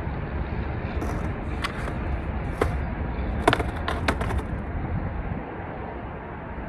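Steady highway traffic noise, easing a little about five and a half seconds in, with a string of sharp clacks from a skateboard being handled and set onto the lip of a concrete ramp between about one and four and a half seconds in.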